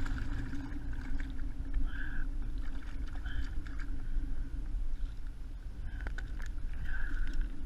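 Water lapping against a kayak hull with wind rumbling on the microphone. A few splashes and knocks come as a small striped bass on an umbrella rig is lifted from the water and swung aboard.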